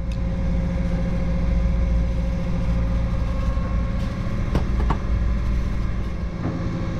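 A sailboat's inboard engine running steadily under way, a constant low hum with a steady higher tone over it, and a couple of light knocks about halfway through.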